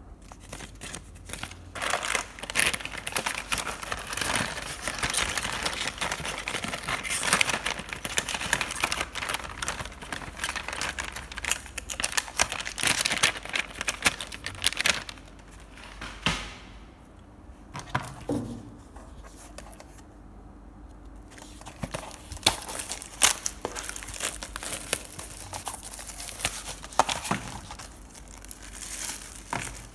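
Paper leaflet and plastic packaging crinkling and rustling as they are handled, with many small crackles and clicks and a couple of brief lulls.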